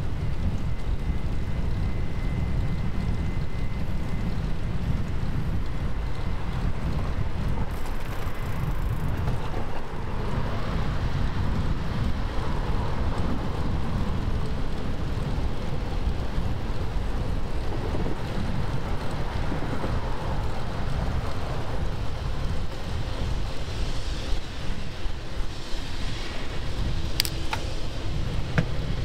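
Wind buffeting the microphone of a moving bike rider, a steady low rumble, with faint road and traffic noise swelling and fading behind it. There is a single sharp click near the end.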